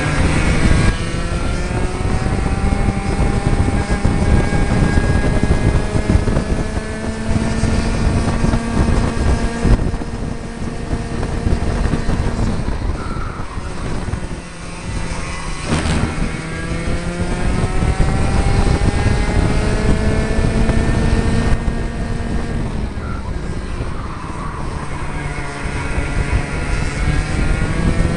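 60cc two-stroke Mini kart engines at racing speed, their buzzing pitch climbing steadily for several seconds at a time as the karts accelerate. The pitch drops and the level dips about halfway through as they slow for a corner, then climbs again, with another lift-off later on.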